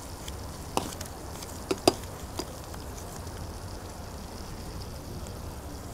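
Steady low street hum with a few sharp clicks in the first two and a half seconds, the loudest near two seconds in, from tongs working food on a hot dog cart's grill.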